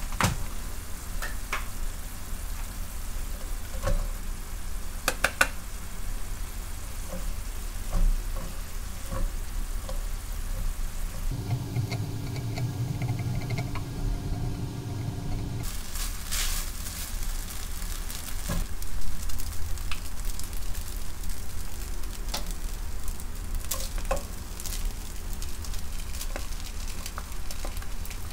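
Food sizzling in a hot pan while being stirred, with scattered sharp clicks of a utensil against the pan. For about four seconds in the middle the hiss gives way to a duller, lower hum with a few steady tones.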